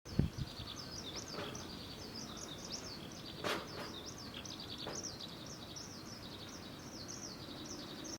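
Small birds chirping continuously in quick, high-pitched runs in a garden, with a few soft knocks, the clearest about three and a half seconds in.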